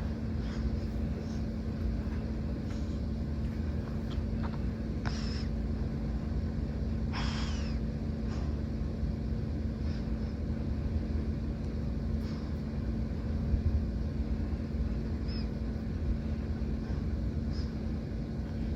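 Mini ceiling fan running steadily on the second of its four speeds: a constant motor hum over a low rumble of moving air. A couple of brief, higher-pitched sounds cut in about five and seven seconds in.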